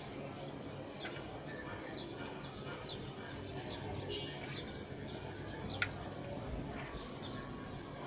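Scissors cutting through the thin plastic of a large water bottle, with one sharp click a little before six seconds in. Short high chirps recur throughout over a steady low hum.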